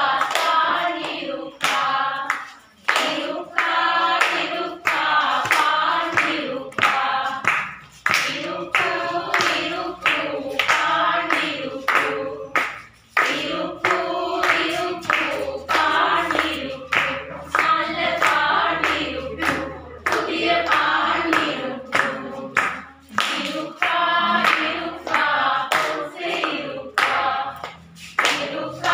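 A group of voices singing a Tamil song together, with hands clapping to the beat about twice a second.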